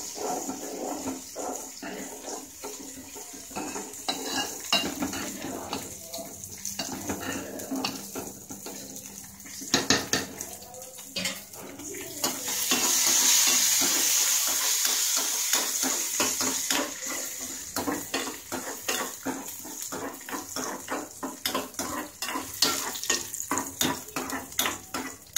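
Steel spoon stirring cashews and raisins frying in ghee in a small steel kadai, clinking and scraping against the pan again and again over a sizzle. The sizzling grows louder and steadier for a few seconds about halfway through.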